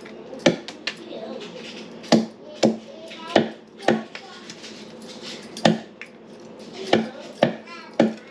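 A large knife chopping through a whole chicken on a round wooden chopping block: about ten sharp knocks of blade into wood at an uneven pace, a chop every half second to second or so.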